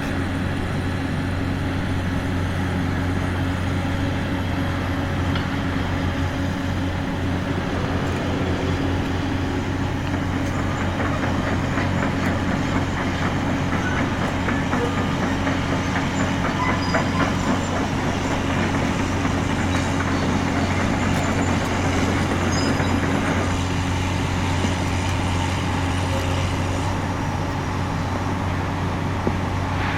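A large engine running steadily at an even pitch, likely demolition machinery, with scattered small clicks and rattles through the middle stretch.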